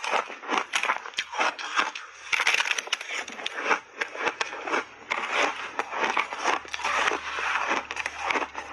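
Shaved ice coated in milk powder being chewed in big mouthfuls: dense, irregular crunching and crackling that swells and fades bite after bite.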